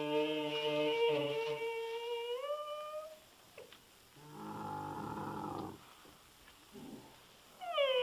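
Bactrian camel calling: a long, drawn-out, even-pitched call that slides up in pitch and stops about three seconds in, then a lower, rough grumble for about a second and a half, and a new long call starting near the end.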